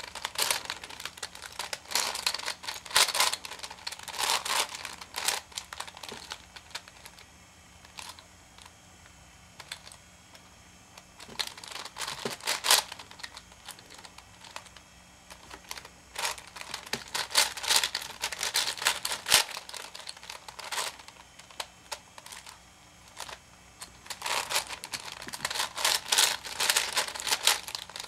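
V-Cube 7 (7x7x7 puzzle cube) layers clicking and rattling as they are turned by hand, in quick runs of moves with quieter pauses between them.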